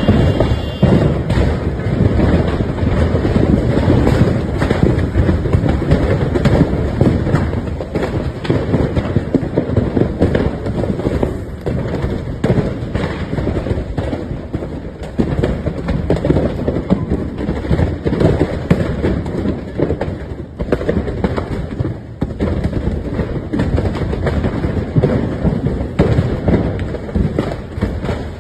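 A burning truck: a steady low rumble of fire broken by many irregular sharp pops and bangs, like a string of firecrackers, going on throughout.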